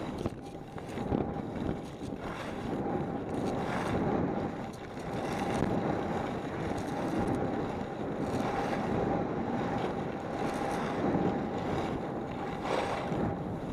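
Wind rushing over the camera microphone and skis scraping and chattering over packed snow during a fast downhill run, with a faint steady whine underneath.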